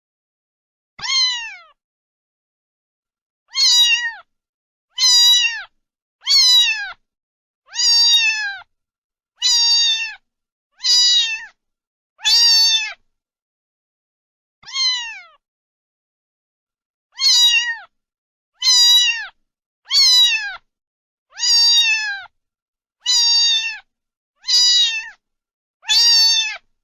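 A domestic cat meowing over and over, about sixteen meows each under a second long, each dropping in pitch at its end, with dead silence between them and a few longer pauses.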